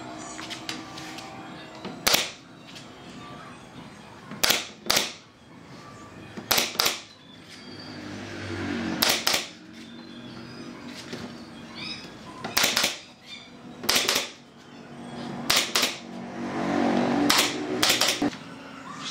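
Pneumatic nail gun firing nails into pine boards: about fourteen sharp shots, mostly in quick pairs a few seconds apart.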